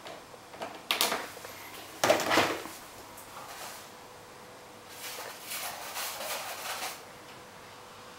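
Chinchillas playing around a plastic mop bucket on a tiled floor: two loud hollow knocks and clatters about a second apart, then a couple of seconds of scuffling and scrabbling.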